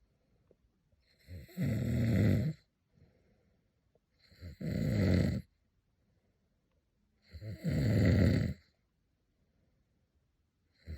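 A person snoring very loudly: three long snores about three seconds apart, each lasting over a second, with a fourth beginning at the very end.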